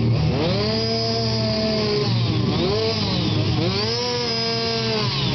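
Gasoline chainsaw carving wood: the engine revs up and holds high, drops off, then revs up again, rising and falling several times.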